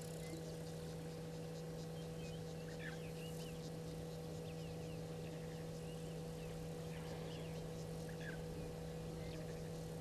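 Steady electrical hum with scattered short bird chirps and faint insect ticking from the surrounding bush.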